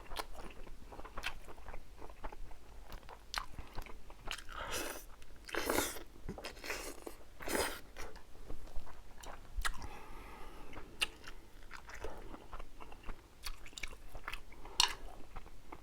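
Close-miked chewing and biting of a person eating braised semi-dried pollack with seafood: irregular wet smacks and sharp crunchy clicks, a few louder ones around the middle.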